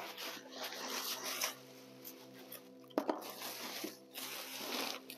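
Rustling and crinkling of the white wrapping around a leather tote bag as it is handled and pulled up out of a cardboard shipping box, in two spells, with a sharp knock about three seconds in.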